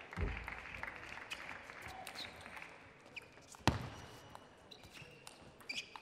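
Table tennis ball on bat and table: a few light ticks, then one sharp, loud click a little past the middle, over a faint murmur of the hall. A dull thump sounds just after the start.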